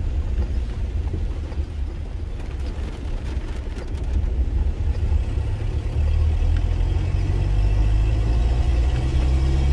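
Mitsubishi L200 pickup heard from inside the cab while driving on a wet, muddy dirt road: a steady low engine and tyre rumble, with a few light knocks around three seconds in. The rumble grows louder and steadier about six seconds in.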